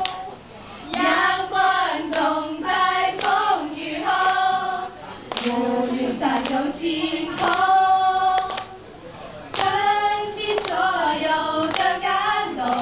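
Three schoolgirls singing a song together, in sung lines separated by short breaths.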